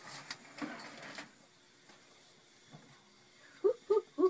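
A home oven is opened and a bread loaf pan is drawn out with a cloth: a short rustling scrape at first, then quiet. Near the end come three short, loud squeaks.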